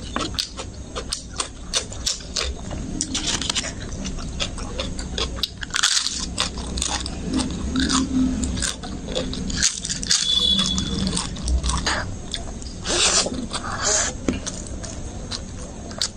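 Close-miked eating sounds: chewing and biting rice and curry eaten by hand, with repeated crisp crunches of papad.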